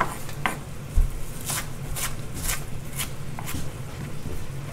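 Chef's knife chopping flat-leaf parsley on a wooden chopping board: steady strokes about two a second, with a heavier knock about a second in.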